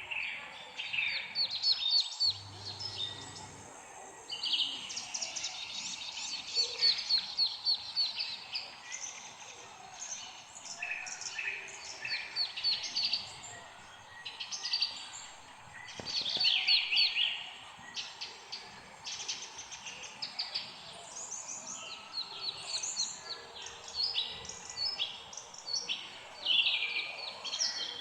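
Several songbirds chirping and singing at once, with overlapping trills of rapid repeated notes.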